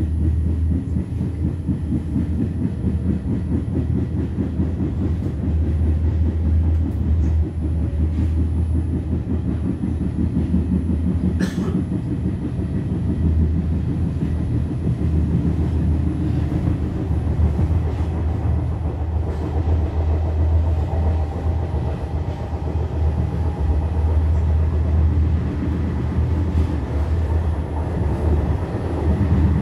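Steady low rumble of a regional passenger train running on the rails, heard from inside the carriage, with one brief sharp click about a third of the way through.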